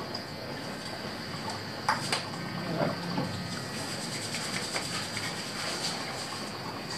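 Quiet room tone with a steady high-pitched whine, and two light clicks about two seconds in.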